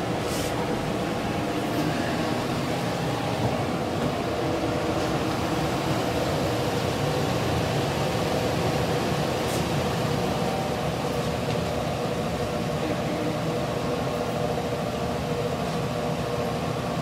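Minneapolis Blower Door Model 3 fan running steadily at speed as it depressurizes the house. The sound is an even whirring drone with a faint steady hum in it.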